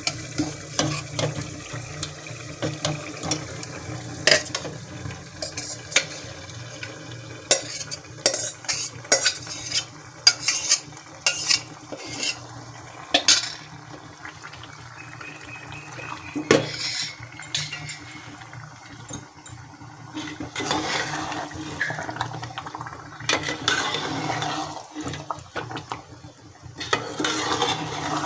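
Metal spoon clinking and knocking against a pot and bowl as marinated chicken is tipped into frying masala, with the clinks bunched together through the middle. Near the end come longer scraping, stirring sounds as the chicken is mixed into the masala, with some sizzling.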